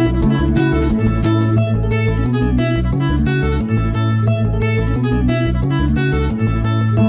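Background music led by plucked acoustic guitar, with a steady rhythm and bass notes.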